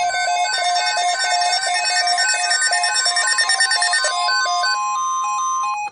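Weather radio receiver sounding its alert for a severe thunderstorm watch: electronic tones beeping in a fast repeating pattern over a steady tone. The beeping thins out about four seconds in, and the steady tone cuts off suddenly near the end.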